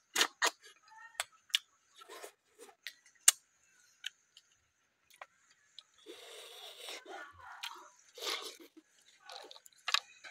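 Close-up eating sounds of a person chewing and sucking cooked snails from their shells, with many short sharp clicks of shells being handled, and a longer stretch of rough noise about two-thirds of the way through.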